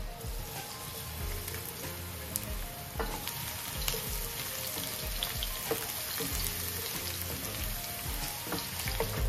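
Minced garlic sizzling in hot cooking oil in a frying pan, stirred with a wooden spatula that gives occasional light taps and scrapes. The garlic is browning.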